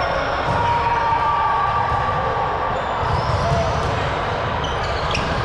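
A ball bouncing and thudding on a gym floor during an indoor game, with players' voices echoing in a large hall and a few short sharp squeaks near the end.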